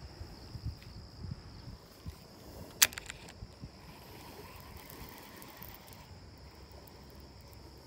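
Fishing rod and reel being cast: a sharp click about three seconds in, then a few faint ticks, over a steady high chirring of insects.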